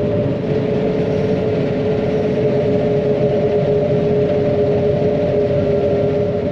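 John Deere 9500 combine running steadily while harvesting soybeans, heard from inside the cab: a constant machinery drone with two steady whining tones over it.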